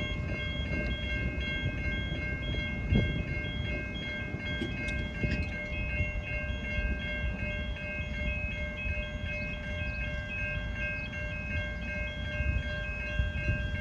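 Steady low rumble of V/Line diesel trains at the station. A constant high whine runs over it, along with a regular repeating electronic chime.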